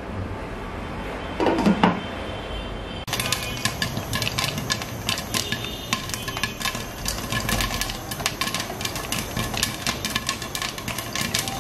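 Corn kernels popping in a covered pan, a dense run of sharp pops against the glass lid from about three seconds in. Before that, one loud clunk as the glass lid goes onto the pan.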